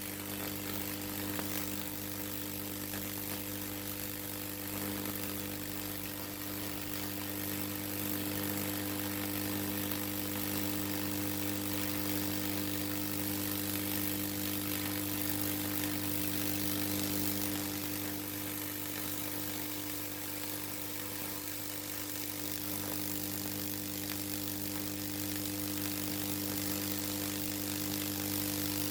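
High-voltage transformer of a Lichtenberg wood-burning rig buzzing steadily with a deep mains hum, over a hissing crackle of the current burning fractal patterns into the wood.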